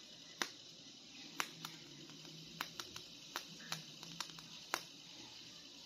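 Hollow plastic action figures clicking and tapping lightly as fingers handle them: about ten faint, sharp clicks at uneven intervals.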